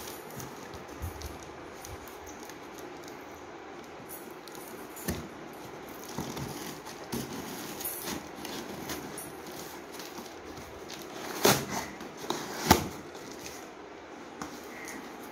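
Hands peeling packing tape off a cardboard shipping box and prising its flaps open: scattered small crackles and scrapes over a steady background hiss. Two loud, sharp tearing snaps come about three-quarters of the way through, a second or so apart.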